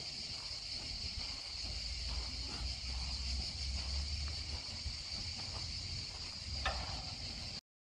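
Steady high-pitched insect chirring over a low wind rumble on a phone microphone, with one brief knock about seven seconds in; the sound cuts out abruptly just before the end.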